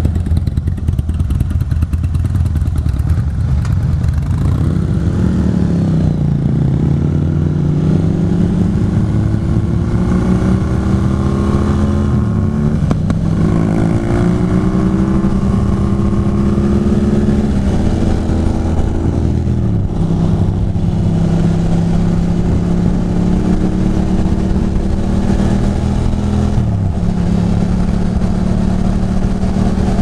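Air-cooled L-twin of a 2006 Ducati Monster 620 pulling away and accelerating through the gears, heard from on the bike. Its pitch climbs from a few seconds in, then drops and climbs again at each of several upshifts before it settles into steady cruising.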